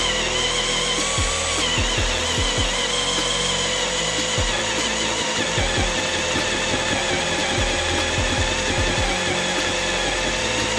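Cordless drill running continuously under load with a steady, slightly wavering whine, drilling the head off a seized screw.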